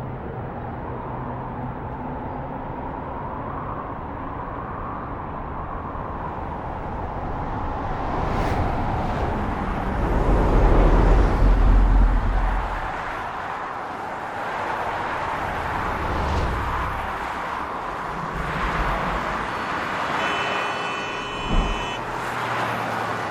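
FPV racing quadcopter's motors whining, their pitch wavering as the throttle changes, with wind rushing over the onboard camera's microphone. The rushing swells into a heavy low buffeting about ten to twelve seconds in.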